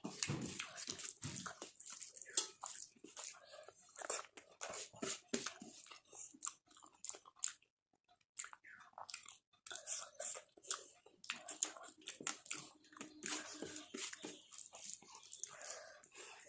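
A person chewing and biting a rice-and-curry meal close to the microphone: irregular wet smacks and crunches, with a brief pause about eight seconds in.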